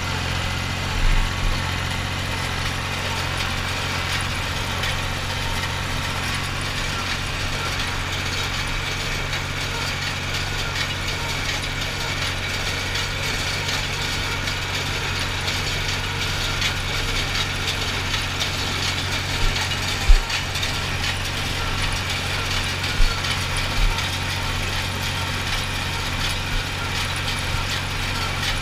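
Ford 2910 tractor engine running steadily while it drives a New Holland small square baler picking up hay, with the baler's mechanism clattering throughout and a few sharp knocks, the loudest about twenty seconds in.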